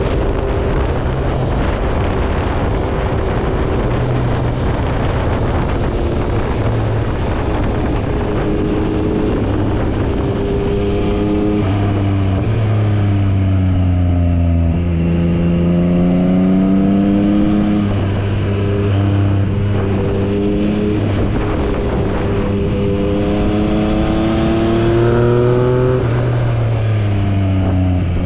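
Yamaha MT-09's inline three-cylinder engine under way, with wind rushing over the microphone. Its note drops as the bike slows for bends and rises again on the throttle, several times.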